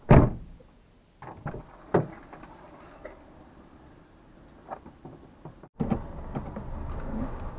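A loud thump, then a few sharp knocks and clatters. After a brief break just before the end, a louder steady vehicle and road rumble sets in.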